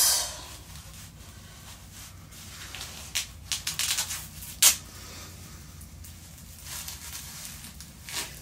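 Rustling and a handful of brief clicks, bunched about three to five seconds in and again near the end, as a waist trainer is handled and fastened around the body.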